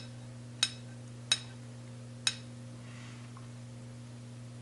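Three light, sharp metallic clinks of a synchro ring being fitted and turned on a gearbox's third gear, over a steady low hum.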